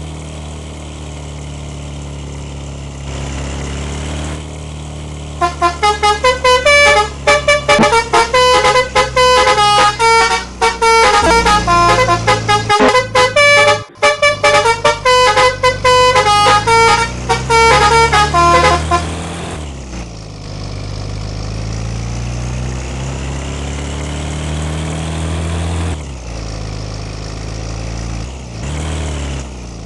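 Bus telolet horn playing a fast tune of short notes that jump between pitches, starting about five seconds in and stopping near twenty seconds, over the bus engine running steadily.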